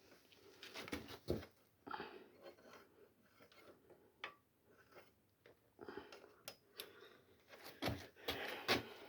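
Irregular clicks, knocks and scraping as a wrench turns a crank puller to draw a square-taper bicycle crank off the bottom bracket axle, with one sharp click about four seconds in and a busier run of knocks near the end.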